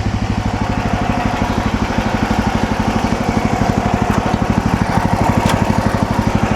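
MechMaxx SM32 portable band sawmill running steadily, its small gasoline engine beating evenly with the band blade turning smoothly and no grinding from the blade, which the owner puts down to everything now being in alignment. A light click about five and a half seconds in.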